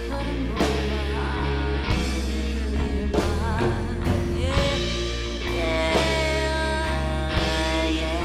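Live rock band playing a slow blues number, with electric guitar over bass and drums, and held notes that waver and bend.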